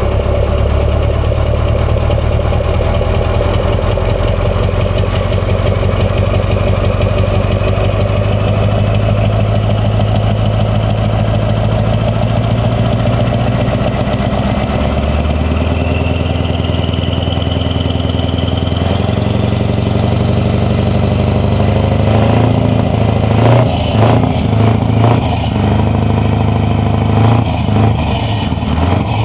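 Scania 143M truck's 14-litre V8 diesel idling steadily for the first half. Over the last third the throttle is blipped in a quick series of short revs.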